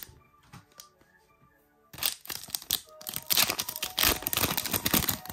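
Plastic trading-card booster pack wrapper crinkling and tearing as it is ripped open by hand, starting about two seconds in after a short quiet spell. Soft background music plays underneath.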